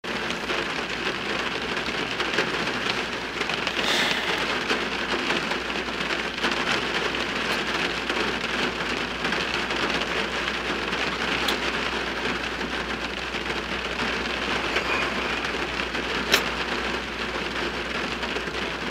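Rain drumming on a car's roof and windshield, heard from inside the cabin as a steady patter with a few sharper drop ticks, over a low steady hum.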